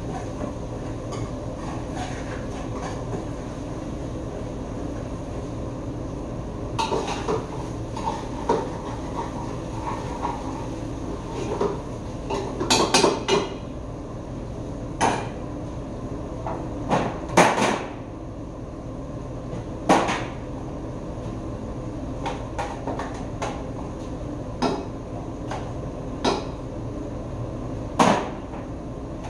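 Metal pots, steel bowls and utensils clattering and knocking now and then, with a short busy run of clatter a little before halfway, over a steady background hum.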